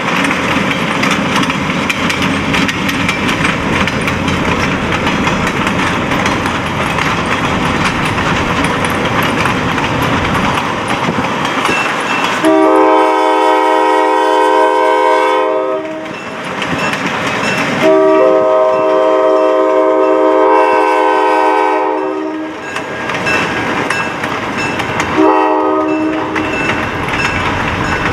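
After a steady rumble, the multi-note horn of EMD GP-9 locomotive 1751 sounds a long blast, a second long blast, then a short one: the start of the long-long-short-long signal for a road crossing.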